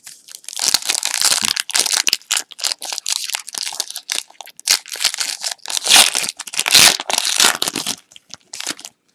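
Plastic wrapper of a trading-card pack being torn open and crinkled by hand: irregular, close crackling and tearing for about eight seconds.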